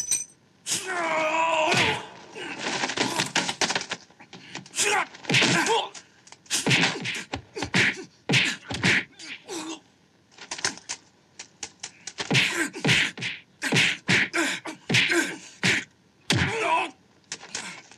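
Kung fu fight sound effects: a rapid, irregular series of punch and kick impacts and whooshes, with a drawn-out shout or groan about a second in and shorter grunts from the fighters.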